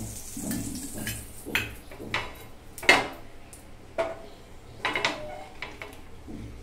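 Steel spoon clinking against a small steel bowl and the griddle as oil is spooned onto the hot pan: a handful of sharp clinks, the loudest about three seconds in.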